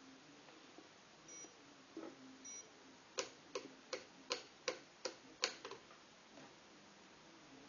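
Two short high beeps from a Fidelity Sensory Chess Challenger 12B chess computer, then seven sharp, evenly spaced clicks, about two and a half a second, from the Fidelity Challenger thermal printer as it prints the move.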